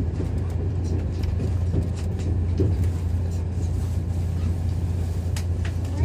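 Interior running noise of a JR 383 series limited express electric train car: a steady low hum under an even rumble, with a couple of faint clicks near the end.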